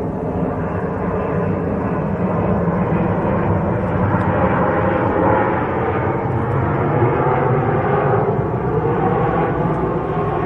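Airbus A220-300 airliner's geared turbofan engines and airflow, a steady loud rush with faint tones drifting slowly in pitch.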